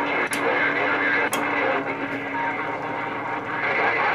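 Galaxy CB radio's speaker putting out band noise on channel 28: a steady hiss and crackle with a low steady tone through it. Two sharp clicks come about a second apart near the start.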